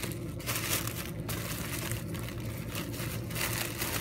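Pink tissue-paper gift wrapping crinkling and rustling irregularly as it is unwrapped by hand.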